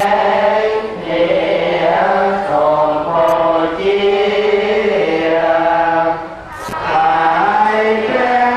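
A group of voices chanting a Buddhist chant together in unison, in long held, gently sliding notes, with a short breath break about six and a half seconds in.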